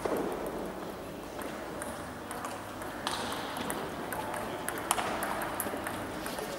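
Table tennis balls ticking off the tables and rackets in rallies at several tables at once, an irregular patter of sharp clicks, one sharper click about five seconds in.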